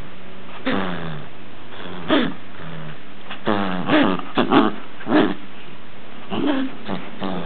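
A small dachshund growling in play as it tugs on a rope pull toy, in a string of short bursts, busiest and loudest around the middle.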